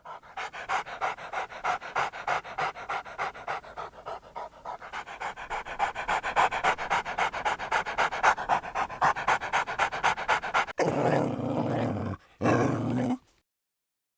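A dog panting fast and evenly, about five breaths a second, followed near the end by two short, louder rushes of noise that cut off suddenly.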